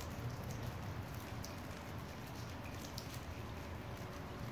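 Steady rain falling during a thunderstorm, with a few sharp drip ticks close by over a low steady rumble.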